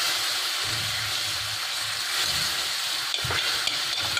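Milk cream (malai) sizzling steadily as it melts in a hot nonstick kadai, with a spoon starting to stir it near the end.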